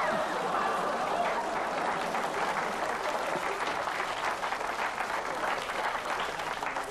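Audience applauding: a dense, steady clapping that eases off slightly near the end.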